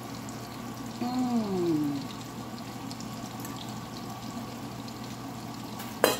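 Metal utensil stirring and fluffing cooked rice in a stainless steel pot, with a short falling hum from a voice about a second in. Near the end the domed steel lid is set on the pot with one sharp clank, the loudest sound here.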